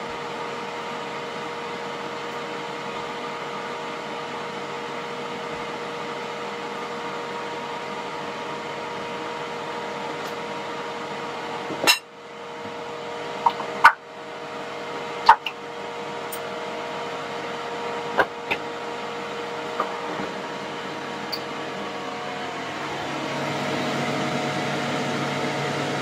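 Steady mechanical hum of a running kitchen appliance. About halfway through come several sharp clinks of metal tongs against a glass mixing bowl. The hum gets louder near the end.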